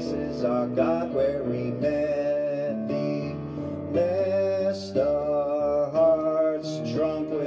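A man singing a hymn to his own electronic keyboard accompaniment.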